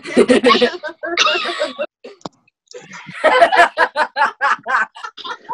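Teenage boys laughing over a video call: vocal outbursts at first, then a long run of quick laughter about five pulses a second from roughly three seconds in.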